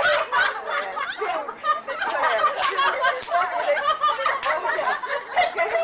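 A group of people laughing and chattering over one another.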